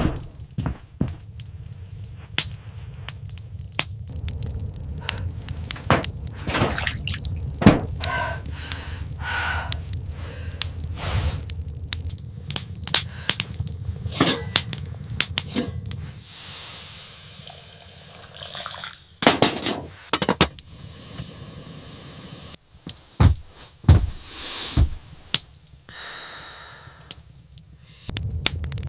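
Scattered knocks and thuds over a low steady rumble; the rumble drops away about halfway through, leaving a few louder knocks and some soft hiss.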